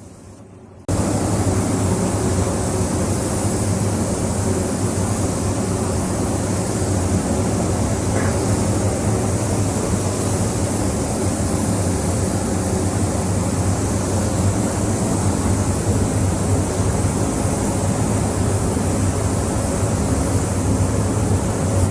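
Loud, steady machine noise with a low hum, cutting in abruptly about a second in and holding unchanged.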